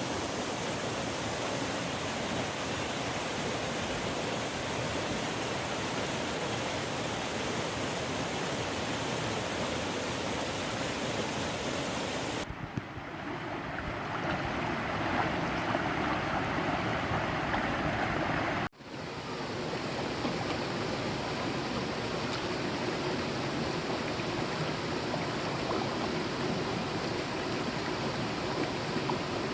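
Mountain valley stream flowing, a steady rushing water noise. The sound changes abruptly twice, about twelve seconds in and again about nineteen seconds in, with a momentary dip at the second change.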